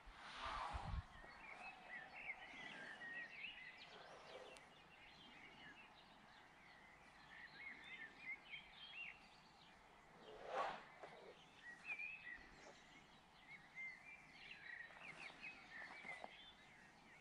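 Faint twittering of small birds, many short chirps throughout, with a few soft whooshes of wind on the microphone, the first about a second in.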